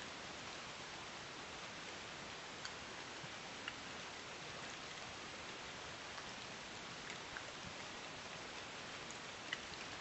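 A steady, even hiss with a few faint ticks scattered through it, the sharpest one near the end.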